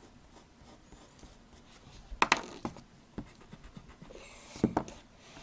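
Pencil on paper: faint scratchy drawing strokes, with sharp taps about two seconds in and again near the end, and a brief rub on the paper just before the last taps.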